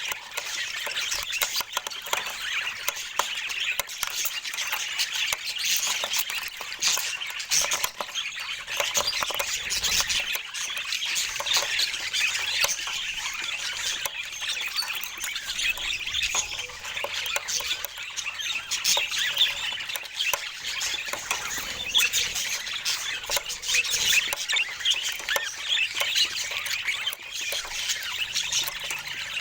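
Budgerigars chattering and squawking continuously, many short chirps overlapping without a pause.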